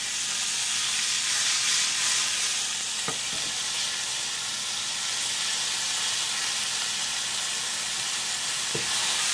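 Sliced dryad's saddle mushrooms frying in olive oil in a pan, a steady sizzle with a faint tick about three seconds in and another near the end.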